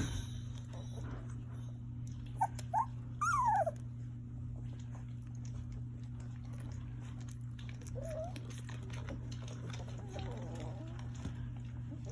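Three-week-old English Cream Golden Retriever puppies whimpering: two short squeaks about two and a half seconds in, then a longer whine falling in pitch, and another short whimper about eight seconds in, over a steady low hum.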